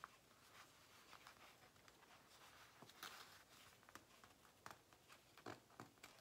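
Faint crinkling and rustling of a thin plastic sheet handled by fingertips, with scattered light crackles.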